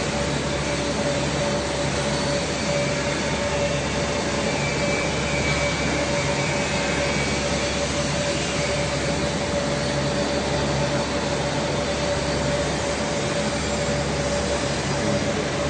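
Steady machinery hum with a constant mid-pitched whine over a low drone, unchanging throughout.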